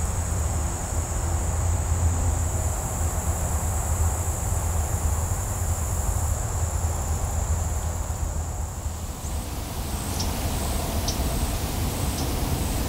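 Insects trilling in one continuous high buzz, changing about nine seconds in to short pulsed chirps repeating roughly every 0.7 s, with a few brief high chirps. A steady low rumble runs underneath and is the loudest part.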